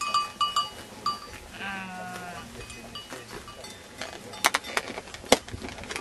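Sheep of a grazing flock bleating, with one long wavering bleat about two seconds in. Short high tones ring in the first second, and a few sharp clicks come near the end.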